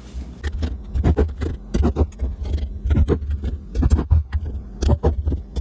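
Glass canning jars with metal lids and bands, and a plastic band-tightening tool, being handled on a hard countertop: irregular knocks, clinks and scrapes with low handling thumps.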